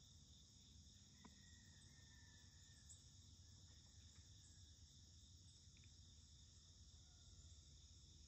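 Faint, steady chorus of crickets and other insects chirping, over a low outdoor hum.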